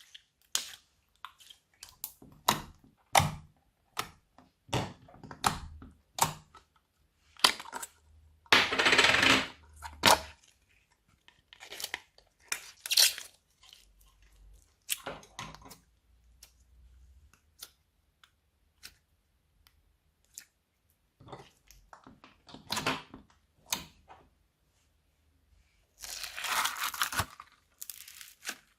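Slime being squished, stretched and folded by hand: an irregular string of sticky clicks and pops, with two longer noisy stretches, about nine seconds in and near the end.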